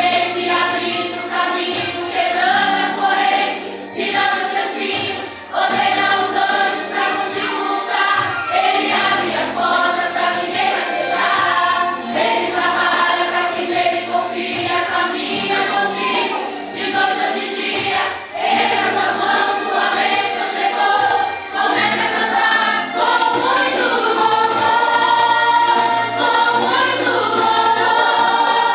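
A vocal group singing a Christian worship song together, with low accompanying notes that change every second or two underneath the voices.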